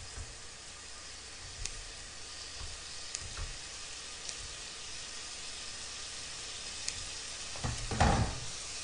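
Pork belly sizzling in a frying pan, a steady hiss, with a few sharp clicks of kitchen scissors and tongs as the strips are cut into pieces. A louder knock comes about eight seconds in.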